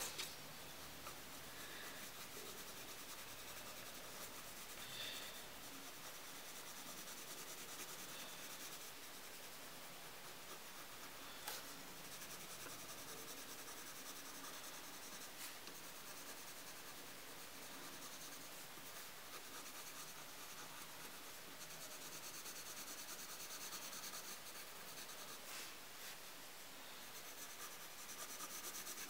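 Yellow coloured pencil shading on paper: a faint, continuous scratchy rubbing of the pencil point, with a couple of light clicks.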